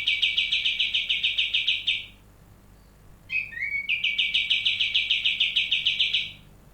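Cucak jenggot (grey-cheeked bulbul) singing two phrases about a second apart. Each opens with a short upward note and breaks into a fast, even trill of about ten repeated notes a second, the pinched 'nyepit' passage that bird keepers prize in this song.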